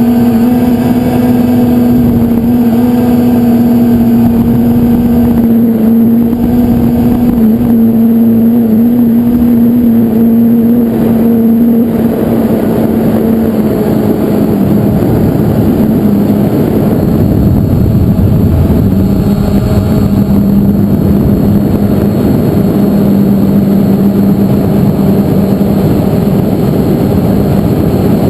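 Quadcopter drone's motors and propellers humming steadily under a rushing wash of air. The pitch wavers and drops a little about halfway through, then holds lower.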